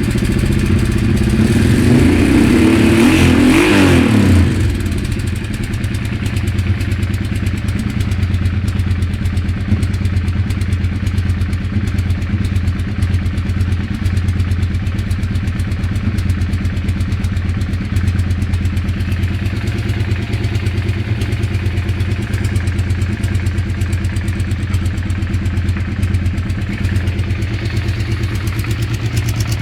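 An engine idling with an uneven beat, revved up briefly about a second in and dropping back to idle around four seconds in. The owner calls its sound weird.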